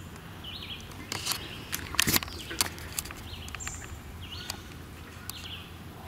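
Songbirds singing in a wetland woodland, short phrases repeating every second or two over a low steady background hum. Several sharp clicks land between about one and two and a half seconds in.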